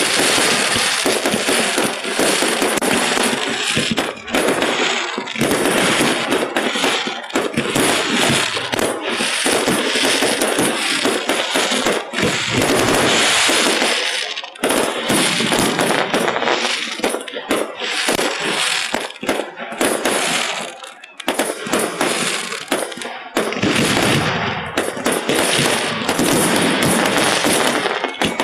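Aerial fireworks bursting in rapid succession, a dense run of bangs and crackles with a few short lulls. It is heard through a phone microphone that overcompresses the audio, flattening the bangs into a near-constant din.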